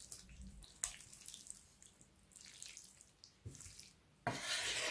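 Two wooden spatulas tossing spaghetti and meatballs through tomato sauce in a frying pan: soft, wet squelching and light scraping with a few small clicks, faint at first and louder near the end.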